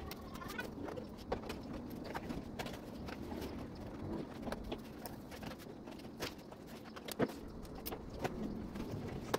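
Scattered light clicks and taps at irregular times, the sharpest about a second in and again near the end, from hands and a fine-tip screwdriver working the small screws along the plastic frame of a flat-screen TV.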